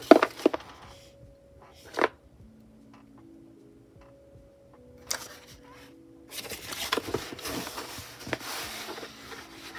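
Packaging being handled and opened: sharp crinkling clicks at the start and about two seconds in, then a longer stretch of rustling and crinkling from about five seconds in until near the end. Soft lo-fi background music plays a quiet melody underneath.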